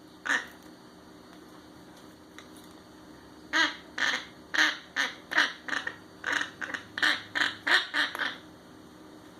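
An animal giving one short call, then after a pause a run of about a dozen short calls, roughly two a second.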